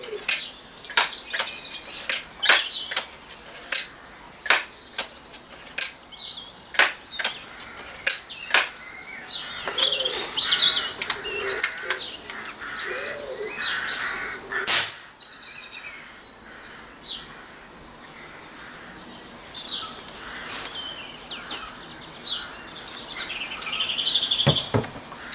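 Vintage Setra .22 pump-up pneumatic air rifle being pumped up, its pump arm clacking in a steady run of sharp clicks for the first nine seconds or so, then one sharp crack about fifteen seconds in as the rifle is fired. Birds chirp throughout.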